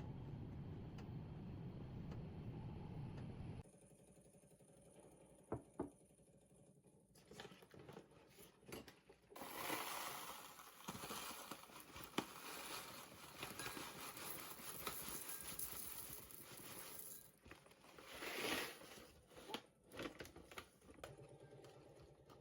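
Faint rustling, scraping and small clicks of objects being handled, over a steady hiss that drops away a few seconds in.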